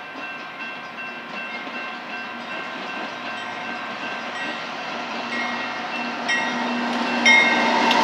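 Approaching diesel freight train led by a GE C44-9W locomotive, its running noise growing steadily louder as it nears a grade crossing. The locomotive horn sounds in several blasts in the second half, getting louder, over the crossing bell ringing throughout.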